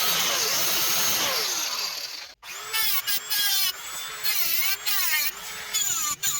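Power tool running: a steady loud whir that winds down with a falling pitch about two seconds in. After a break, short spells of a whine follow, its pitch wavering up and down as the load changes.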